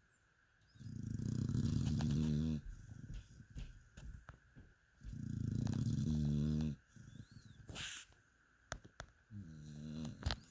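Dog snoring in its sleep: three long, rattling pitched snores about four seconds apart, with small clicks and a short breathy hiss in between.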